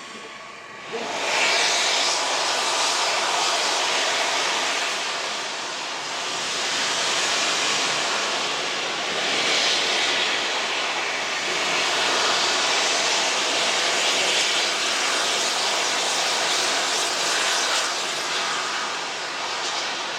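Steam locomotive No 926 Repton, a Southern Railway Schools class 4-4-0, letting off a loud hiss of steam. The hiss starts suddenly about a second in and carries on steadily, swelling and easing every few seconds.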